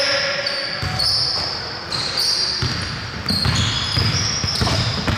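Basketball game play in a gym: the ball bouncing on the hardwood and players' sneakers squeaking in short, high-pitched chirps, echoing in the hall.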